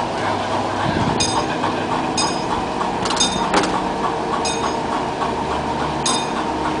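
Boatyard travel lift's engine running steadily under load while lifting a boat out of the water, with sharp metallic pings about once a second or so from its rigging.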